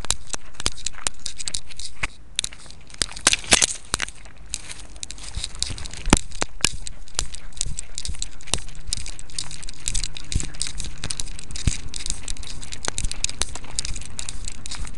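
Handling noise from a camera worn on a dog's collar as the dog moves: dense crackling and scratching clicks of the camera and collar rubbing against fur. It eases for a couple of seconds near the start and has a sharp knock about six seconds in.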